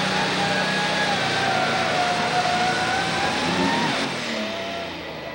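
Turbocharged diesel super stock pulling tractor running flat out under load as it drags the weight sled, with a high whine over the engine noise. About four seconds in, the throttle comes off at the end of the pull: the noise drops and a quieter whine remains.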